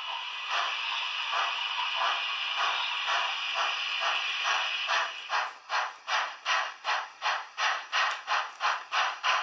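Märklin H0 model steam locomotive's sound decoder playing steam sounds through its small speaker: a steady hiss of steam with faint beats in it, changing about five seconds in to sharp, evenly spaced exhaust chuffs, about two and a half a second.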